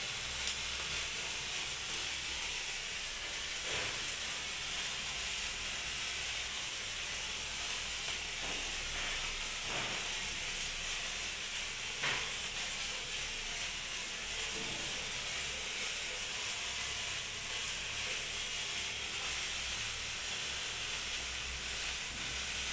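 Hand-held sparkler burning with a steady fizzing hiss, broken by a few brief crackles.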